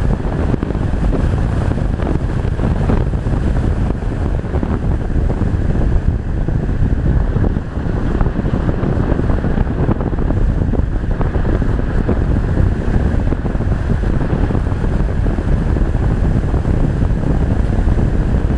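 Loud, steady wind noise rushing over a GoPro's microphone, an unbroken low rumble with no engine tone.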